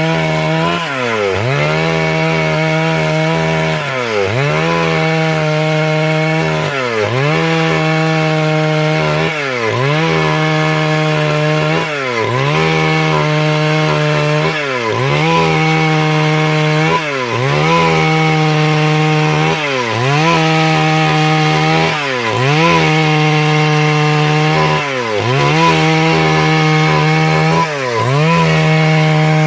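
Stihl MS 382 two-stroke chainsaw running at high speed while sawing wood into boards. Its engine note dips sharply and recovers about every two and a half seconds.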